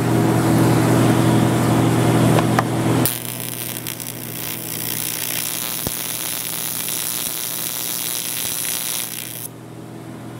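A steady electrical hum, then about three seconds in a TIG welding arc strikes on the aluminum forging and runs as an even, buzzing hiss for about six seconds while the first tack is laid with 4043 filler rod. The arc cuts off suddenly about a second before the end.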